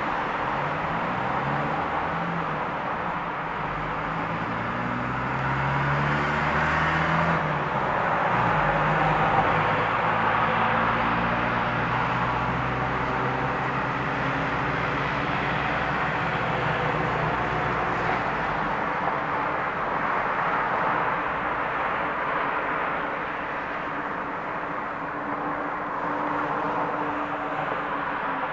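Steady motor-vehicle noise: a low engine drone that shifts in pitch over roughly the first eight seconds, under an even rushing hiss that carries on throughout.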